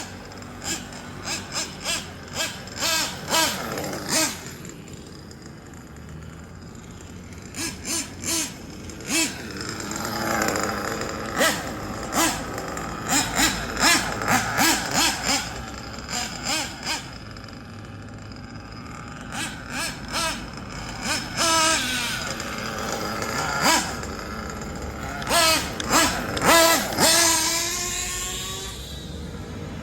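Kyosho Inferno NEO ST 3.0 nitro RC car's small glow engine running, revved in runs of quick throttle blips, with longer stretches where the pitch rises and falls as the car drives and accelerates.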